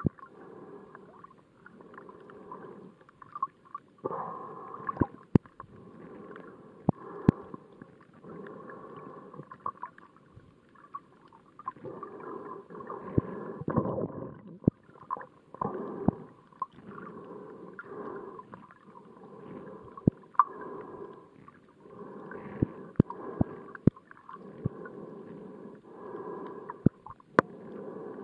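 Muffled underwater water noise picked up by a submerged camera, swelling and fading every second or two, with sharp clicks scattered throughout.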